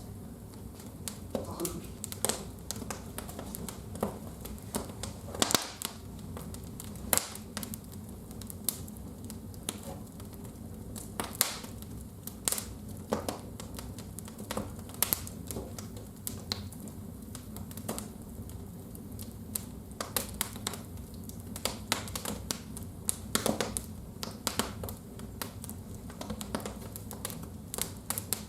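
Wood fire burning in a fireplace, crackling with irregular sharp pops and snaps.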